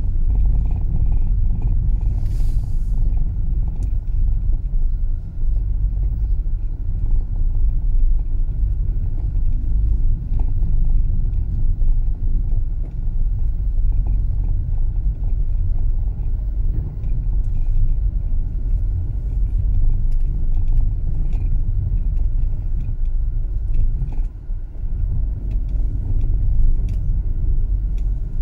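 Car driving slowly, a steady low rumble of engine and road noise as heard from inside the vehicle. A faint steady whine runs through it, and a brief hiss comes about two seconds in.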